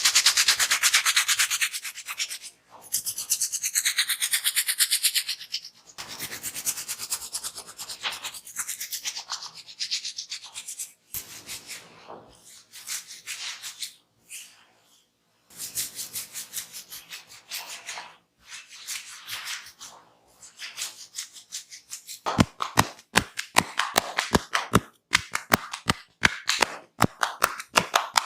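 Fingers scratching and rubbing through hair and scalp in a head massage, a fast, dense rustle that comes and goes in spells. About 22 seconds in it changes to sharp, rhythmic taps, about three a second.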